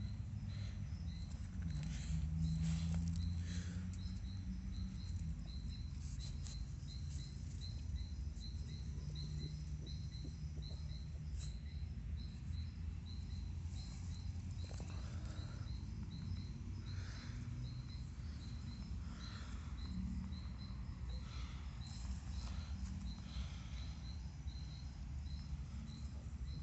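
Horse's stomach and gut sounds: low rumbling with gurgling swells that come and go. A faint high chirp repeats steadily about twice a second behind it.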